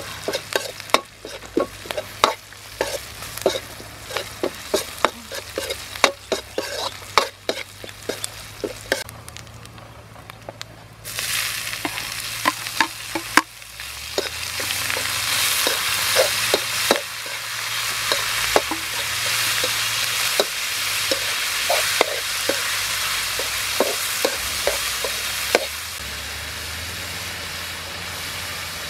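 Metal spatula scraping and clacking against an aluminium wok as vegetables are stir-fried. About 11 seconds in, snails in their shells go into the hot wok and a loud sizzling starts, continuing under the stirring.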